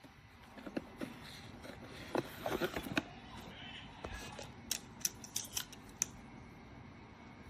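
A series of sharp clicks and taps, like small hard objects being handled, with a dense cluster about two to three seconds in and a few more between about four and a half and six seconds.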